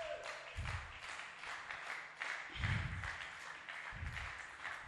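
Faint, scattered clapping from a seated congregation, with a few low thumps.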